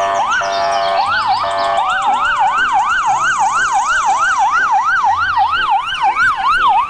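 Several police sirens sounding together. One fast yelp rises and falls about three to four times a second, over other, slower sweeping sirens.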